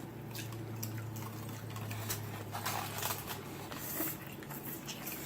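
Wet chewing and mouth sounds of someone eating a burger, with scattered soft smacks and clicks over a low steady hum.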